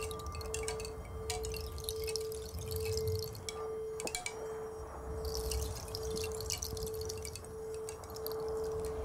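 A pure, steady electronic tone sounding in even pulses a little more than once a second, over a low rumble and scattered high crackling.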